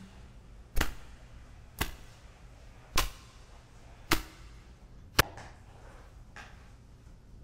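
A series of sharp knocks or thumps, about one a second, six in all, the last one faint.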